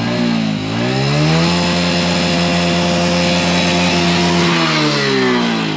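A Hero Honda Passion motorcycle's single-cylinder four-stroke engine revved hard while the bike stands still: the revs climb over the first second or so, are held high for about three seconds, then drop back toward idle near the end.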